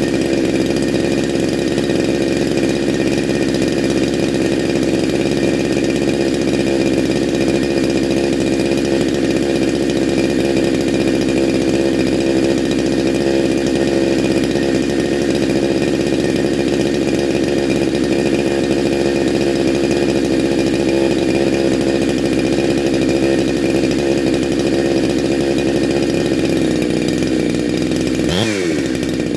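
Neo-tec NH872 big-bore chainsaw engine, a Husqvarna 372XP clone, running steadily during a break-in heat cycle. Near the end its pitch dips sharply and comes straight back up.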